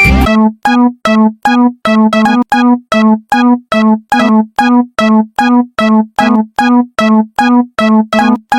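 Animated railroad crossing warning bell: one electronic ding at a steady pitch, repeated evenly a little over twice a second. It starts just after a burst of music cuts off.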